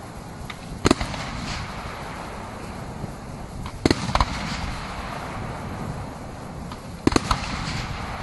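Aerial fireworks shells bursting with sharp bangs, one about a second in, a pair near the middle and a quick cluster near the end, over a steady low rumble.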